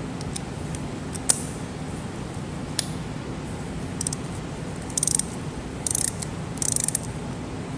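Hand ratchet clicking in three short bursts of rapid ticks, backing out the 8 mm injector hold-down bolts on a 6.7L Cummins diesel head, after two single metal clicks.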